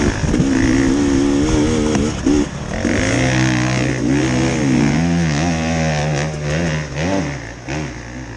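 Dirt bike engine revving hard and unevenly under load on a steep hill climb, its pitch rising and falling with the throttle. A lower engine note comes in about three seconds in, and the sound fades toward the end as the bike pulls away up the slope.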